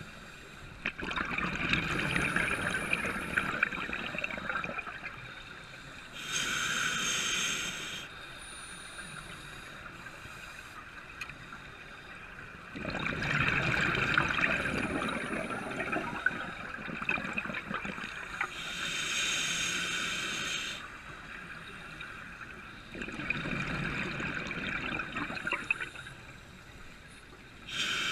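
Scuba breathing through a regulator underwater: three rounds of exhaled bubbles gurgling out, each about three seconds long, alternating with the shorter hissing, whistling draw of inhalation through the regulator, with quiet pauses between breaths.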